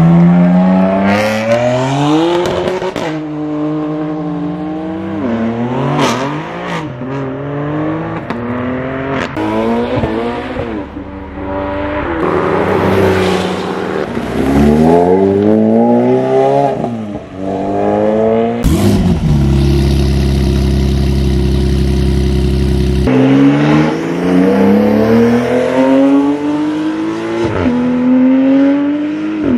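BMW M4 G82's twin-turbo inline-six engine pulling hard and revving up through the gears of its manual gearbox, its pitch dropping at each shift. It gives several quick rev rises and falls partway through and runs at a steady pitch for a few seconds.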